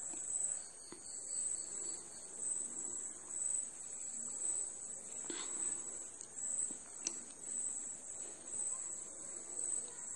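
Chopped ginger sizzling faintly in hot oil in a pot, over a high-pitched chirp that pulses about once a second. A couple of light clicks come about halfway through.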